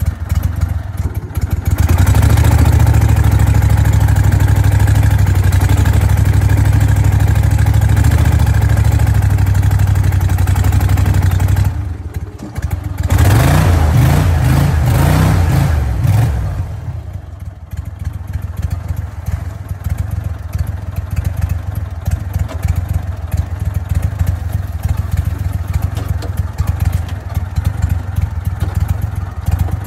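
Air-cooled engine of a crawfish boat running hard. It eases off about twelve seconds in, revs up again briefly, then settles to a lower, steady run. Clatter of crawfish traps being emptied onto the metal sorting table sounds over it.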